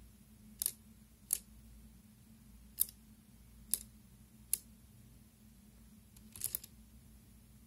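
Soroban (Japanese abacus) beads being flicked by a finger, clicking against each other and the bar: single sharp clicks spaced irregularly, then a quick run of several clicks about six and a half seconds in.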